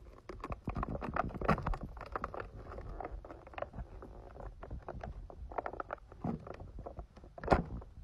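Foil-and-plastic wrapper crinkling and crackling as it is peeled open and handled, in quick irregular bursts, with a louder crackle about seven and a half seconds in.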